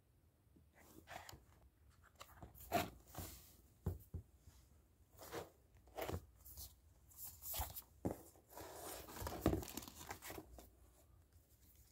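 Comic books being handled: paper covers and pages rustling and sliding against each other in irregular bursts, with a few soft knocks as books are moved and set down.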